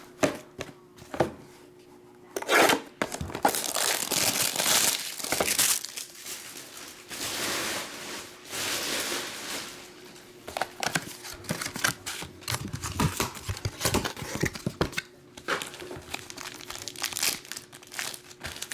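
Packaging being torn open and crinkled by hand as a box is unwrapped: bursts of tearing and crackling, with two longer rips about four and eight seconds in.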